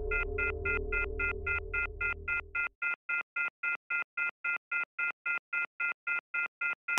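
Rapid electronic beeping: short beeps at one high pitch, evenly spaced at about four a second, over a low music drone that drops out a little under three seconds in. The beeps stop abruptly at the end.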